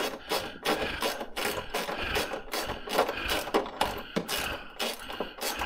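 Quick, even mechanical clicking, about six clicks a second, of a ratchet spanner running a nut onto one of the bolts holding a luggage rack to a motorcycle top box lid.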